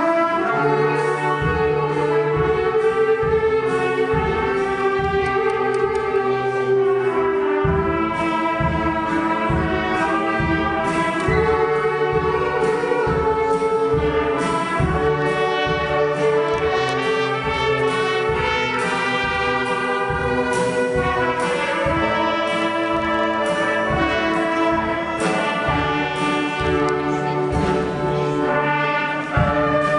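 Brass band music: slow, held chords that change every second or two.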